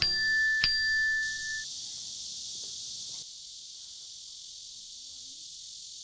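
iPhone notification chime: a bright ding with a second strike just over half a second in, ringing for about a second and a half, followed by faint hiss.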